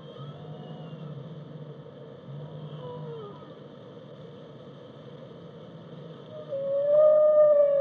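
Whale song: faint gliding calls over a steady low hum, then a loud, long pitched call that starts about six and a half seconds in, rises slightly and then holds level.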